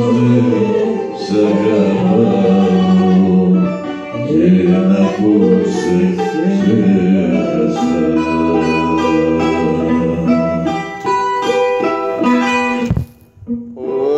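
A man singing through a handheld microphone with long held notes over plucked-string accompaniment; the song ends with a few short plucked notes and stops sharply near the end.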